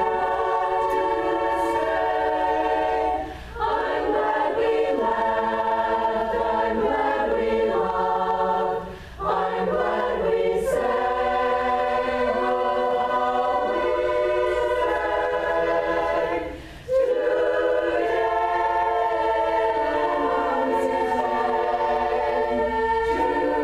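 Small choir singing unaccompanied in long-held chords, with short breaks about three and a half, nine and seventeen seconds in.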